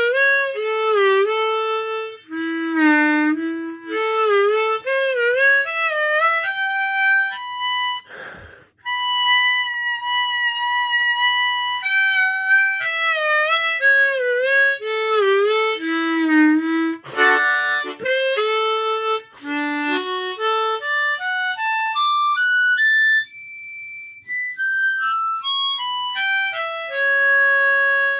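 Ten-hole diatonic harmonica played solo: a bluesy melody with bent notes dipping and returning, a few long held notes, and a stepwise scale run up and back down near the end.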